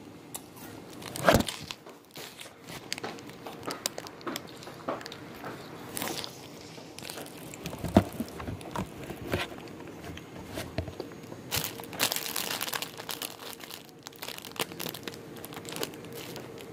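Plastic bags and food wrappers crinkling and rustling as they are handled close to the microphone. The crinkling comes as many small crackles, with two sharp knocks standing out, one about a second in and one about eight seconds in.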